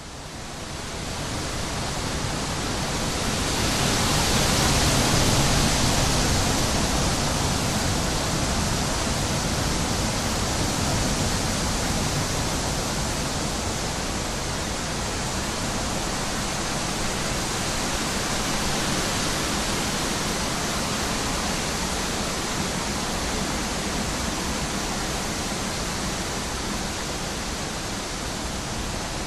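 Wind: a steady rushing that fades in, swells to its loudest about five seconds in, then holds steady.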